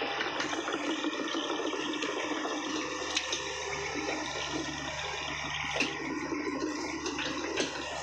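Heavy earthmoving machinery running steadily: a low engine hum under a constant rushing noise, with a few short knocks.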